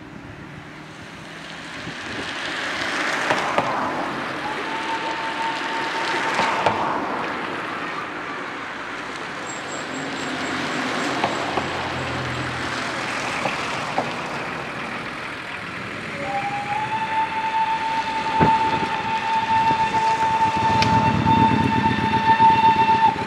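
Ty2 steam locomotive approaching with its train. Its steam whistle gives a short steady blast about five seconds in and a long steady blast from about sixteen seconds on, while its exhaust chuffing grows louder near the end as it draws close.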